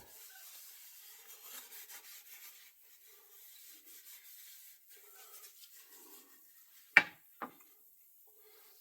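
Faint, intermittent rubbing and scraping on a wooden axe handle worked by hand, then two sharp knocks about half a second apart near the end.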